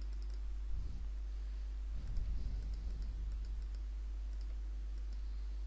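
Faint computer mouse clicks, scattered and irregular, over a steady low hum from the recording setup.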